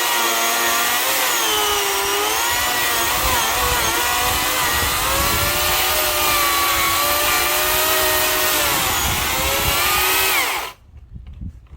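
Electric chainsaw cutting firewood, its motor pitch sagging and recovering as the chain bites into the wood. It stops abruptly near the end.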